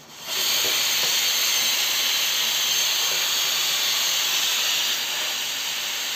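Pressure cooker whistle venting steam in a loud, steady hiss that starts within the first half-second and drops slightly about five seconds in. It is the cooker's first whistle, the sign that it is up to pressure and the cue to turn off the heat under the jeera rice.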